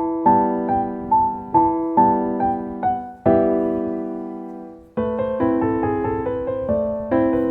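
Background piano music: chords struck in a gentle steady rhythm, with one chord held and left to fade about halfway through before a new phrase begins.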